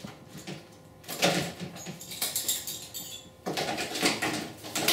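Utility knife scoring a vinyl siding panel in a scratchy pass lasting about two seconds, then the vinyl panel rustling and flexing as it is bent along the score line to snap the piece off.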